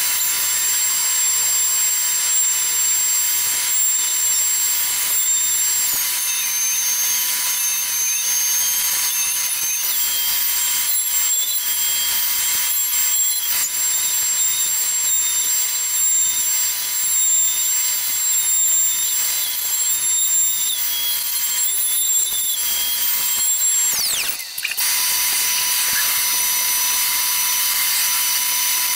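Omni 1325 CNC router spindle surfacing the end grain of a jarrah and karri cutting board: a loud, steady high-pitched whine over cutting noise. The whine steps down in pitch about six seconds in, comes back up a few seconds later, and drops again near the end with a brief dip in loudness.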